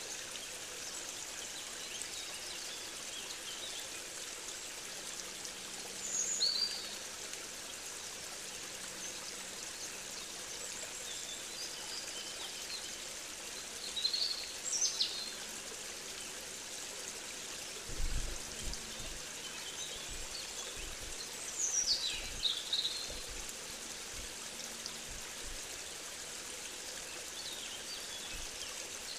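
Steady rush of flowing water, like a stream, with short high bird chirps breaking in a few times, about a fifth, half and two-thirds of the way through. Some low rumbling comes in about two-thirds of the way through.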